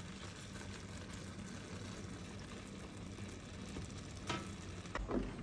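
Risotto sizzling and simmering in a frying pan, a steady soft crackle. A few light knocks near the end.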